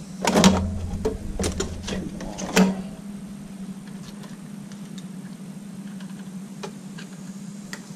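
A few sharp clicks and handling noises, mostly in the first three seconds, as an electrical wire is cut and worked by hand with a small cutting tool. Fainter ticks follow, over a steady low hum.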